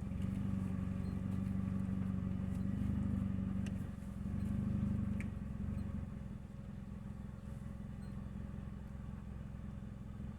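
2000 Nissan Altima engine running with a steady low drone from its leaking exhaust, louder for the first few seconds, then settling to a quieter steady idle about six seconds in.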